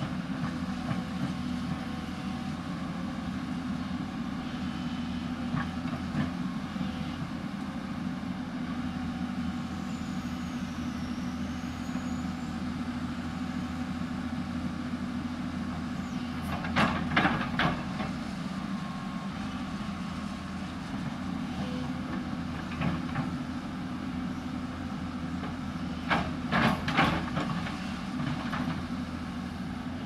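Hyundai 220 crawler excavator's diesel engine running steadily as it digs into a hillside. Short clusters of sharp clanks come about halfway through and again near the end.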